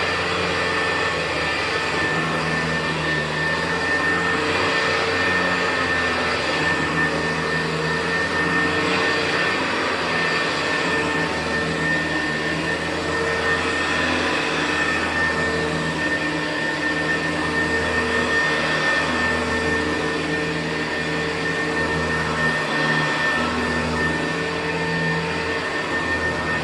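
Hoover U4007 upright vacuum cleaner running steadily on carpet with its commercial brushroll spinning, a constant motor tone with a faint high whine over it.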